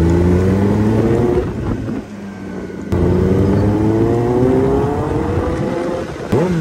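Kawasaki Ninja ZX-10R inline-four sport bike engine pulling under throttle, its pitch rising. It eases off about a second and a half in, comes back on about three seconds in and climbs again, with a quick rise and fall in revs near the end.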